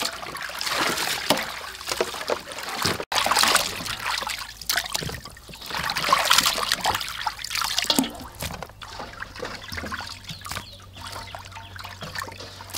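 Water splashing and sloshing in a steel basin as raw chicken feet are rubbed and turned over by hand during washing, coming in uneven surges with a short gap about three seconds in.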